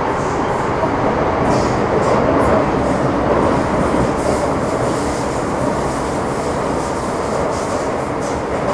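MTR Metro Cammell M-Train electric multiple unit (C239, GEC GTO chopper traction) running between stations, heard from inside the car: a steady rumble of wheels on rail, with faint short high hisses from the wheels and rails now and then.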